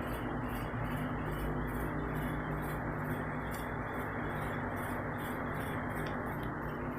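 Waterfall in a flash flood: a steady, unbroken rush of floodwater.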